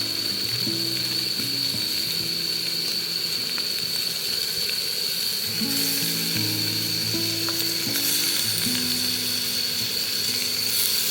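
Food sizzling as it fries in a pan, a steady hiss with a thin steady high-pitched tone, over soft background music of slowly changing held low notes.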